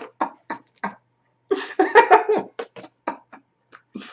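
Laughter in a run of short, quick bursts, about three or four a second, with a longer burst near the middle.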